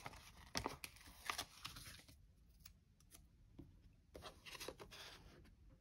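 Faint rustling and crackling of paper sticker sheets being handled, with a denser patch about four seconds in as a sticker is peeled from its backing.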